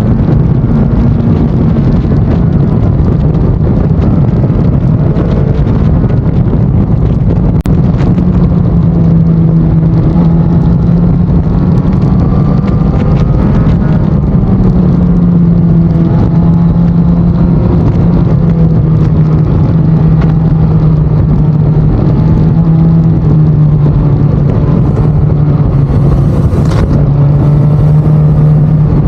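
Suzuki GSX-S1000 inline-four through an SC-Project aftermarket exhaust, running at a steady cruise while riding, the note holding mostly level with small rises and falls over wind rush.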